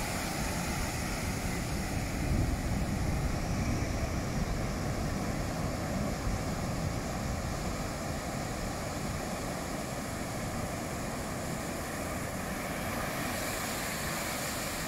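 Heavy ocean surf breaking and washing up the beach, with wind on the microphone.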